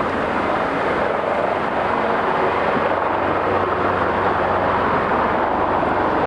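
Leonardo AW139 helicopter's twin turbine engines and rotor running with a steady, even noise.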